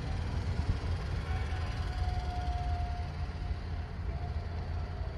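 A steady low rumble with an uneven, gusty loudness, and a faint held tone lasting about a second and a half, starting just over a second in.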